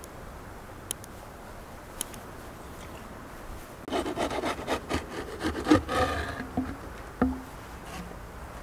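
Wooden bread peel scraping and rubbing across the oven floor for about two and a half seconds as a round of raw dough is slid in, with a brief squeak near the end, then a single knock. A few sharp clicks come first, in the first two seconds.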